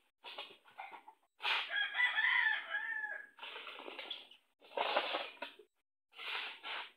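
A rooster crows once, a call of nearly two seconds starting about a second and a half in. Several short noisy bursts come before and after it.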